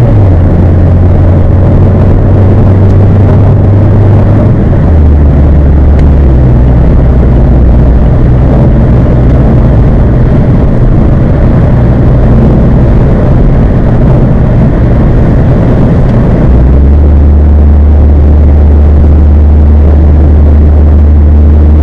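Exhaust drone of a 2016 Mazda 3 GT's four-cylinder engine through twin Spintech Super Pro Street 9000 mufflers, with a K&N air filter fitted. It is a steady low drone whose pitch steps down three times, near the start, about a quarter of the way in and about three quarters of the way in, as the engine speed changes.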